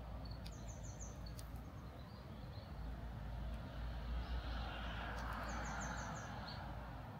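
Steady outdoor background noise with a low rumble. Twice, about five seconds apart, a quick run of about five short, high chirps sounds over it.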